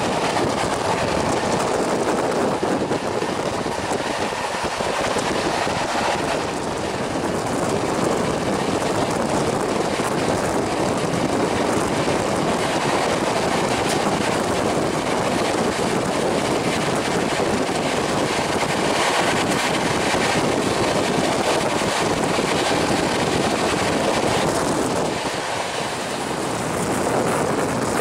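Express passenger train running at high speed, heard from an open coach doorway: a steady rush of wind and wheel-on-rail noise.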